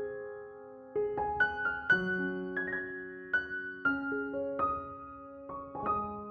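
Background music: a slow, gentle piano melody, single notes struck one after another and left to ring.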